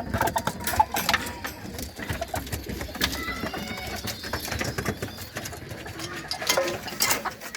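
Pigeons cooing in a loft, with many short clicks and knocks throughout.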